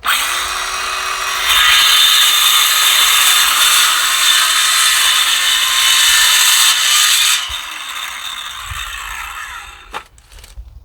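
Battery-powered saw cutting through a 2x4. The motor spins up at the start, the cut gets louder about a second and a half in, and it runs for about six seconds before the saw winds down. A sharp click comes near the end.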